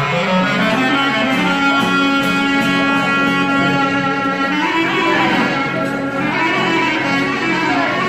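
Clarinet playing a Greek folk melody in long held notes, with a few bends in pitch past the middle, over acoustic guitar accompaniment.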